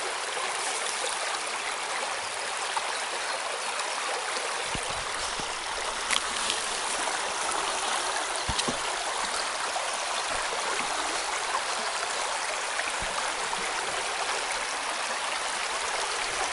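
Small shallow stream rushing and babbling steadily over riffles of stones, with a few faint low bumps now and then.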